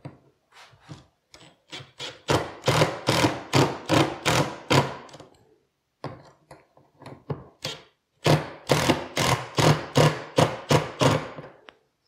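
Makita 18V cordless impact driver driving two screws through a wooden housing into a plywood wall, in two runs a few seconds long. Each run starts light and turns into loud, rapid hammering of about four blows a second as the screw drives home.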